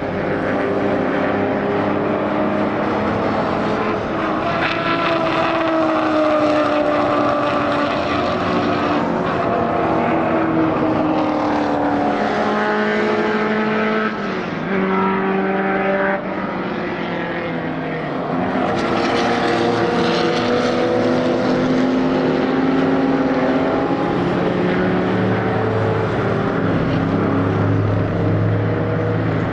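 Engines of classic racing cars at high revs, several cars one after another, rising and falling in pitch with gear changes as they pass.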